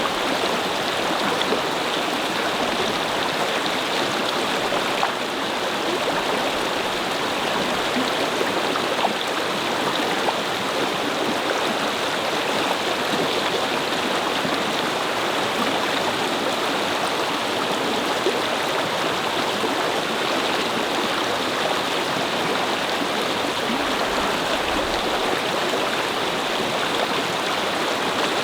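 A brook babbling steadily over stones: a constant, even rush of flowing water.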